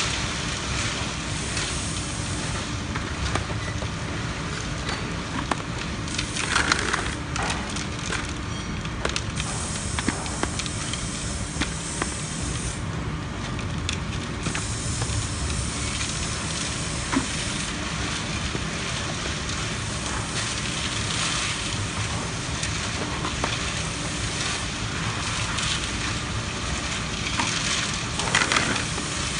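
Small 70-litre tilting-drum concrete mixer with a 1 hp Mitsubishi motor running, its turning drum churning a sand mix in a steady gritty hiss with scattered small clicks.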